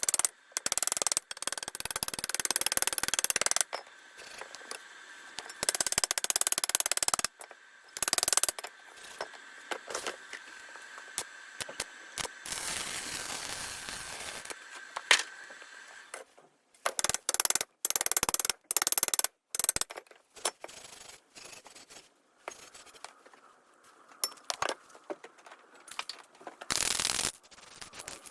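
Workshop repair noise: metal clinks and scraping of hand tools, between bursts of hissing that start and stop abruptly.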